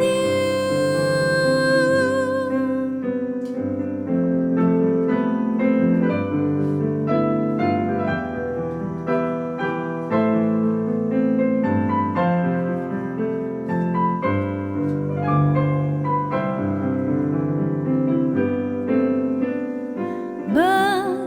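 Solo piano playing a gentle, flowing interlude of a slow ballad, chords and melody notes struck one after another.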